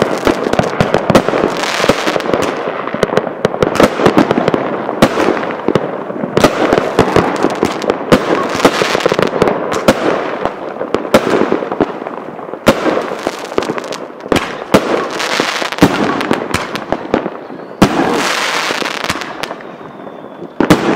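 Svea Tripple X fireworks firing in rapid succession: a dense run of sharp bangs and crackling with hardly a break, with a fresh loud surge about three seconds before the end.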